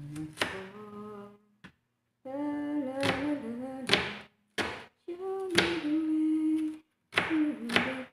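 A woman hums a slow tune in long held notes. Between the notes a kitchen knife clicks sharply against a plastic cutting board as it dices onion, several times.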